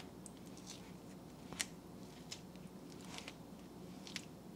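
Faint scrapes and a few light ticks of a silicone spatula stirring hard ice cream in a plastic tub, the sharpest tick about a second and a half in.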